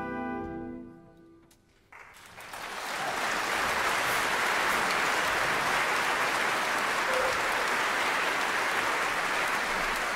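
The orchestra's final held chord dies away in the first second or so. After a short hush, audience applause breaks out about two seconds in and carries on steadily.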